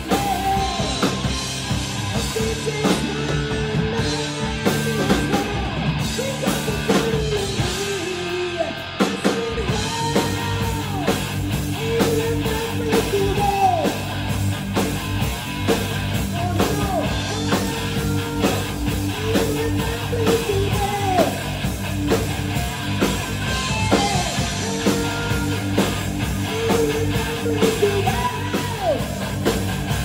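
Live rock band playing: a Stratocaster-style electric guitar through a Marshall amp, a drum kit and a singer, with bending notes in the melody line.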